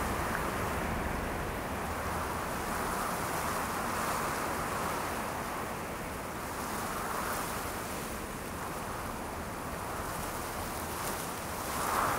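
A steady rushing wash of noise, like surf or wind, that swells and eases every few seconds.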